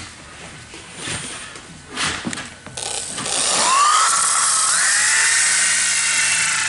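Handheld electric sander switched on about three seconds in: its motor whine rises as it spins up, then runs steadily while sanding down the joints of plywood roof decking so they sit flat.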